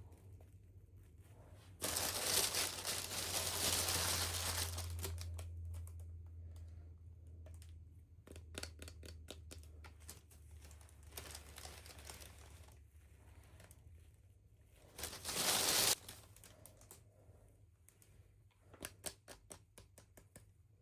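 Packaging crinkling and tearing as it is opened. There is a long stretch of rustling about two seconds in and a short, loud one around fifteen seconds, with small clicks and taps between and near the end.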